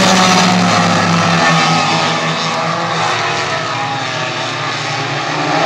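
A pack of Renegade-class stock cars racing on a short oval track, their engines running hard together in a steady drone. The sound fades a little as the pack goes down the far side and swells again near the end.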